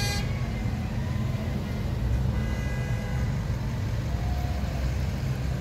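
Cars passing slowly, a steady low rumble of engines and tyres. A short car-horn toot sounds right at the start, and a fainter horn about two and a half seconds in.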